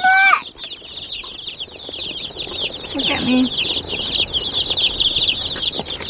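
Dozens of day-old Cornish cross broiler chicks peeping all together, a dense, unbroken chorus of short high chirps.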